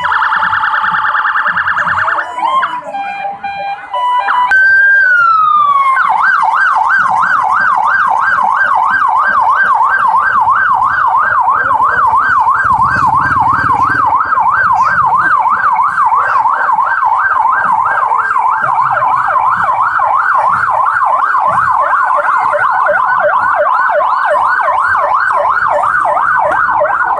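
Electronic siren switching through several tones: a fast warble, short steady tones and a falling glide. About six seconds in it settles into a rapid rising-and-falling yelp, held for about twenty seconds.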